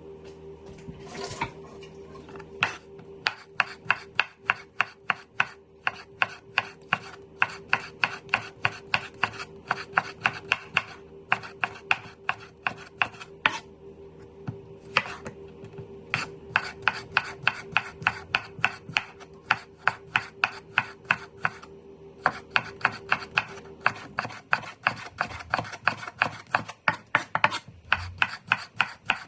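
Knife chopping food on a cutting board in quick, even strokes, about four a second, with a few short pauses. A steady low hum sounds underneath and stops near the end.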